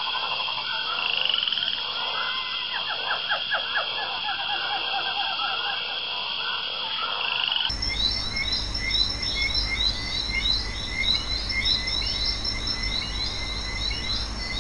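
Frogs croaking in a dense chorus, with steady high trilling behind. About eight seconds in, the sound cuts abruptly to a different, clearer chorus of rapidly repeated calls, as if two nature recordings are spliced together.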